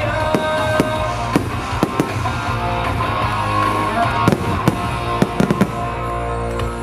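Fireworks bursting with sharp bangs at irregular intervals, several in quick succession about five seconds in, over a loud rock music soundtrack.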